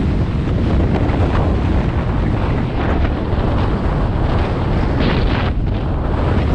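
Wind rushing over the microphone of a camera riding an open chairlift: a steady loud rumble, with a brighter gust about five seconds in.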